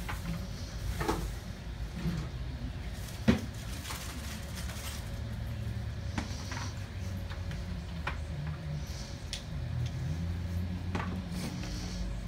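Steady low room hum with scattered light clicks and taps, and one sharper knock about three seconds in.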